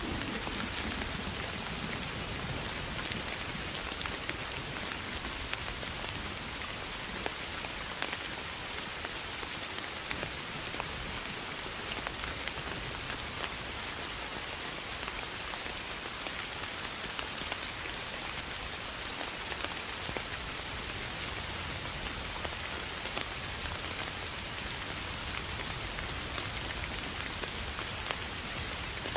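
Soft, steady rain falling on tall grass and leaves: an even hiss dotted with many small drop ticks.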